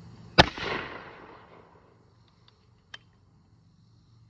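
A single shot from a black-powder muzzleloader shotgun fired at a clay target, a sharp report that echoes away over about a second. A faint click follows about three seconds in.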